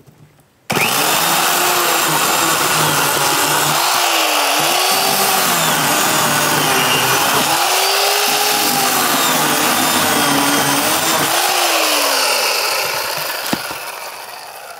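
WORX corded electric chainsaw switched on about a second in and cutting through a log. The motor's pitch dips and recovers several times as the chain bites and bogs under load, then falls away as it winds down near the end.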